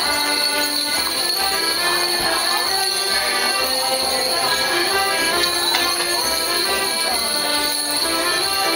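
A Morris dance tune with the jingling of the dancers' leg bells as they step.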